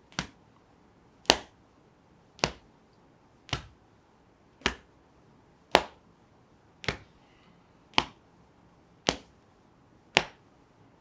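A soft fist tapping on the chest below the collarbone: ten sharp, even taps, about one a second.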